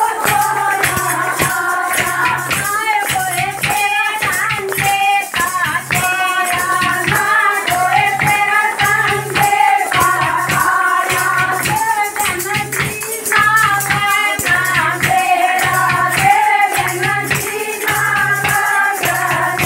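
A group of women singing a Hindi devotional bhajan together, with hand claps and jingling tambourine-like percussion keeping a quick, steady beat under the voices.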